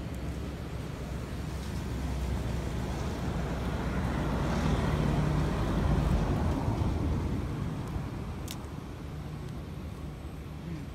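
Road traffic: a motor vehicle's low rumble swells over a few seconds and fades away as it passes. A single sharp tick is heard about two-thirds of the way through.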